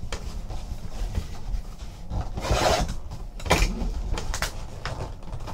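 Trading cards and their packaging being handled on a table: rubbing and sliding, with a louder swish about halfway through and a few light knocks.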